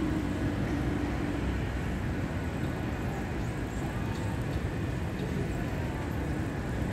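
Steady outdoor city background noise: a low, even rumble like distant traffic.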